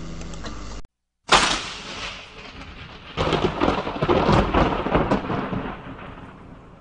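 The music cuts off abruptly. After a brief silence a sudden loud thunderclap breaks into rolling rumble, which swells again midway and then fades away.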